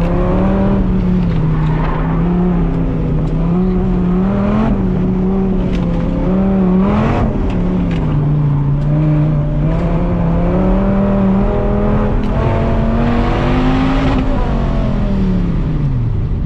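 Dodge Viper's V10 engine heard from inside the cabin, its pitch rising and falling repeatedly as the driver works the throttle on an autocross run. Near the end the note falls steadily as the car slows.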